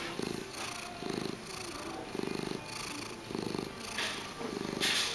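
Domestic tortoiseshell-tabby cat purring close up, the purr coming in low pulses about once a second, in time with its breathing. A brief rushing noise sounds near the end.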